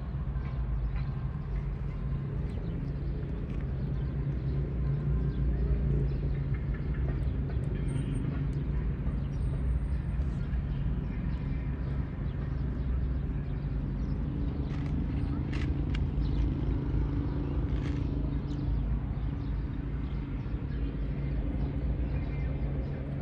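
A steady low mechanical hum, like a running engine, with a few faint ticks over it.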